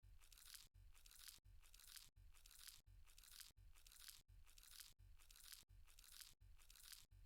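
Near silence: a faint hiss that drops out briefly about every 0.7 s, repeating in near-identical short segments like a loop.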